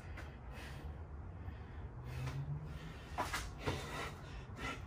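A man breathing hard while doing burpees, several short, sharp exhales at uneven intervals.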